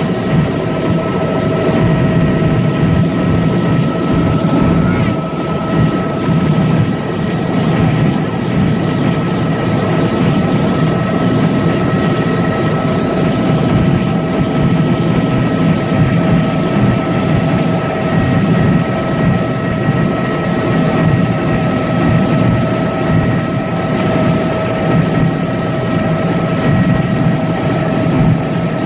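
Helicopter in level flight heard from inside the cabin: a steady, loud drone of rotor and engine with several constant high whining tones over it.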